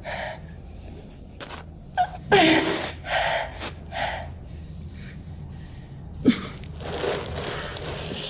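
A young woman panting and gasping in pain, short sharp breaths in quick succession, with a strained cry falling in pitch about two seconds in and another brief one around six seconds. A rushing noise swells near the end.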